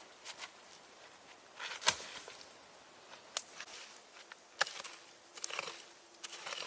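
Scattered sharp snaps and knocks amid rustling, the loudest about two seconds in.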